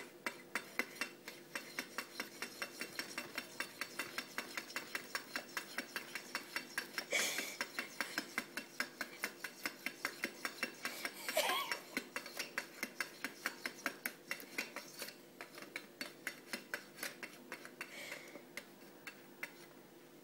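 Wall clock ticking fast and evenly, several ticks a second, while a cat's paw pats and rubs at its face and hands. Two louder scuffs of the paw against the clock come about seven and eleven seconds in.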